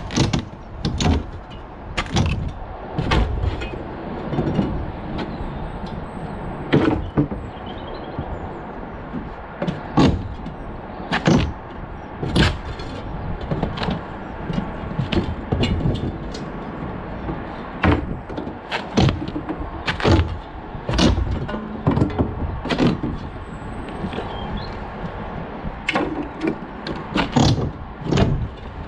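Old roof tiles being knocked off a pitched roof with a hand tool: irregular sharp knocks and tile clatter, about one a second, over a steady background noise.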